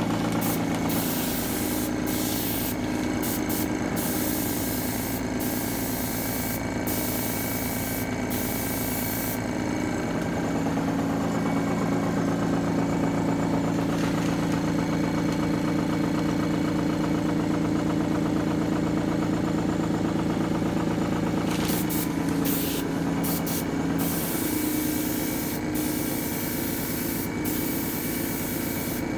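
Air compressor running with a steady hum while a Badger 350 single-action airbrush hisses in short spurts as its trigger is pressed and released, spraying aquatint resist. The hiss comes in many quick bursts in the first few seconds and again near the end.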